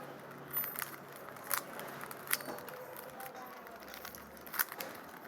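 Plastic Rubik's cube being turned one-handed, its layers giving a few irregular clicks and clacks.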